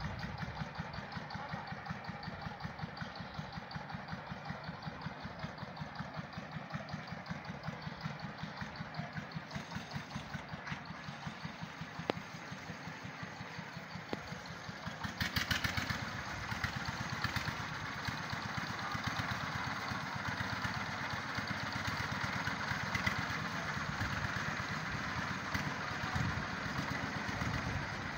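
Small tractor's engine running steadily with an even rhythmic beat while it works the field, growing louder about halfway through.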